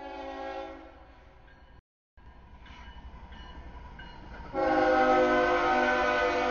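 CSX freight locomotive's air horn sounding as the train approaches a grade crossing: a short blast right at the start, then a longer, much louder blast from about four and a half seconds in, over a low rumble of the train.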